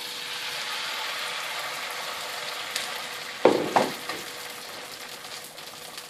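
Baghrir (Moroccan semolina crepe) batter sizzling as it meets a hot buttered frying pan, the hiss swelling in the first second and slowly dying down. About three and a half seconds in, two loud knocks as the ladle is set back in a ceramic bowl.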